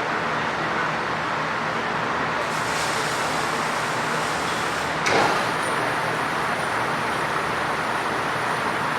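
Forrest Manufacturing Model 480A horizontal bandsaw running with a steady, dense whir. There is a sharp knock about five seconds in, after which a faint high whine joins.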